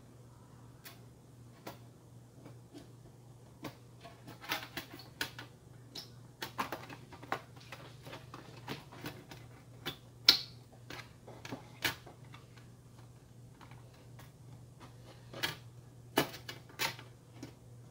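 Aluminium bottom case of a 2018 15-inch MacBook Pro being shifted and lined up on the chassis: irregular light clicks and taps of the metal case, in bunches, the sharpest about ten seconds in. A faint low hum sits underneath.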